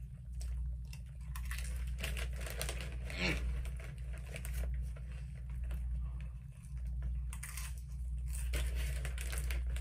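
A Doritos bag crinkling as a hand rummages in it for chips, mixed with the crunch of tortilla chips being chewed, all over a low steady hum.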